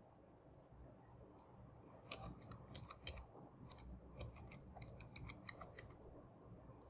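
Faint computer keyboard typing: quick, irregular keystrokes, a few at first, then a steady run from about two seconds in.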